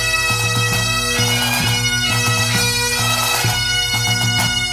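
Bagpipe music: a melody with quick grace notes played over steady drones.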